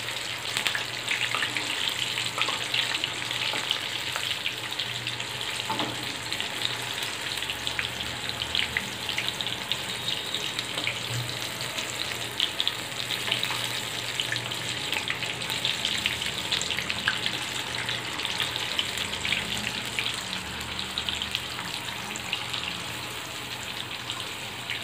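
Flour-coated chicken pieces deep-frying in hot oil in a wok: a steady crackling sizzle with a constant stream of fine pops.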